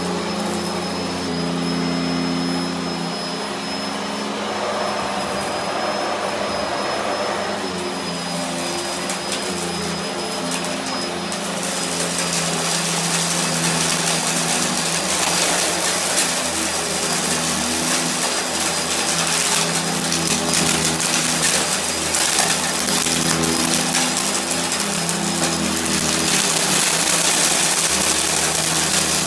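Sanitaire upright vacuum cleaner running steadily, a low motor hum under a rushing hiss of air. From about twelve seconds in, as it pushes into the pile of lint and beads, the sound grows louder and hissier.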